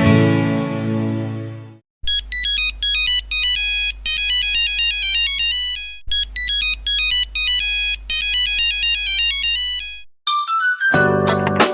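Nokia mobile phone ringtones. A previous tone fades out in the first two seconds. Then a quick, high-pitched electronic melody of short clean notes plays twice through, about four seconds each time, and another ringtone begins near the end.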